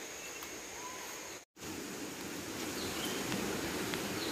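Jungle ambience: a steady background hiss with a few faint, short bird chirps. The sound drops out completely for a moment about a second and a half in.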